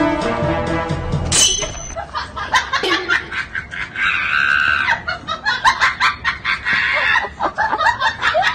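Music for about the first second and a half, then a run of rapid, high-pitched vocal squeals and laughter-like sounds.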